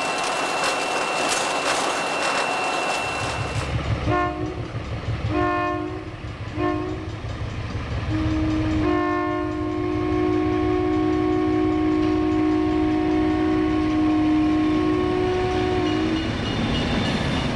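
Locomotive cab running noise with a thin steady high tone, cut off about four seconds in. A diesel locomotive's air horn then sounds a chord in three short blasts and one long blast of about seven seconds, over the low rumble of the engine.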